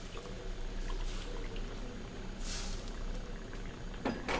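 Chicken and coconut-milk curry, thinned with water, simmering in a wok with a soft steady bubbling. A brief hiss comes about two and a half seconds in, and a short knock comes near the end.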